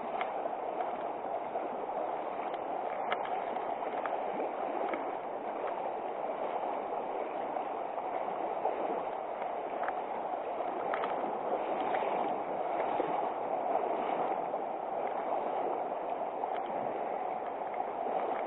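River water rushing steadily, with a few faint clicks over it.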